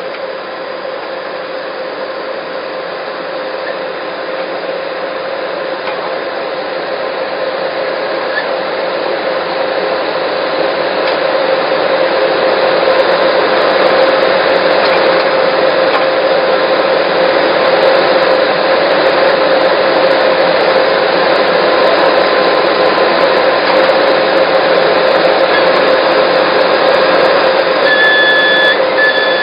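Skid steer loader fitted with a backhoe attachment running at work: a steady mechanical drone with a constant hum, growing gradually louder over the first dozen seconds and then holding level.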